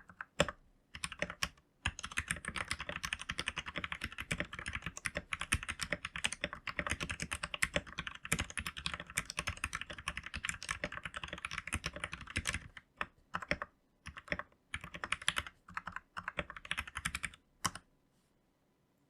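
Typing on an RK71 mechanical keyboard: a few scattered keystrokes, then a long run of fast, continuous typing, then slower irregular keystrokes that stop near the end.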